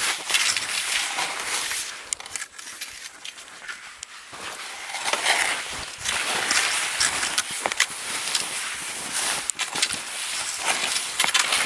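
Someone walking through snow: crunching, swishing steps. They go quieter for a couple of seconds about two seconds in, then pick up again.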